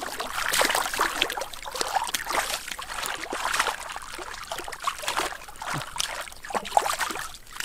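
Hands and arms sloshing through shallow muddy water while feeling along the bottom for fish: a continuous run of small, irregular splashes and trickles.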